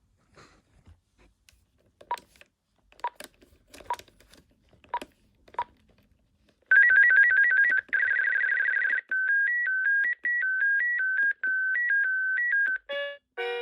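BT Paragon 550 telephone playing its electronic ringtones, after a few faint clicks: first a fast two-note trill, then a buzzy warble, then a simple melody of square beeps stepping between a few notes. A different ringtone melody starts near the end.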